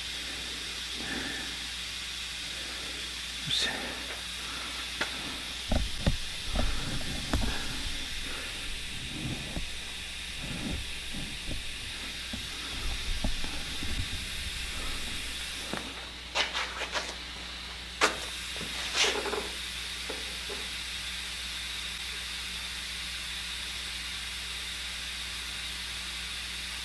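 Steady hiss of workshop room tone with a faint hum, broken by scattered light knocks and clicks, with clusters about six seconds in and again around sixteen to nineteen seconds.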